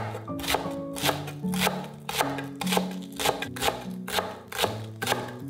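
A chef's knife chopping green onions on a wooden cutting board, sharp strokes about three a second, over background music.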